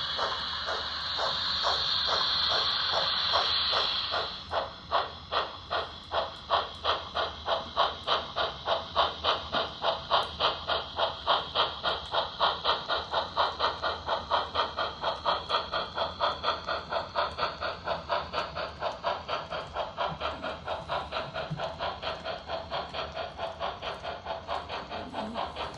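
Märklin model steam locomotive's sound effects: a steady steam hiss for about four seconds, then rhythmic chuffing at about two and a half beats a second as the locomotive pulls its train, the beat getting slightly quicker and a little softer toward the end.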